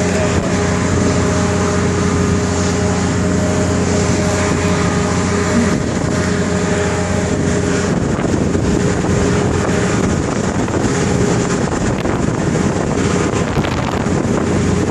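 Strong wind blowing across the microphone, with a steady low hum underneath.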